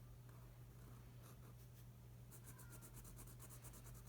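Faint scratching of a pen drawing quick short strokes on paper, with a steady low hum underneath.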